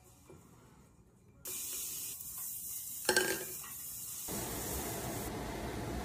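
A steady hiss starts suddenly about a second and a half in, with one brief louder sound a little past halfway. About four seconds in it gives way to a fuller, even rush of steady rain.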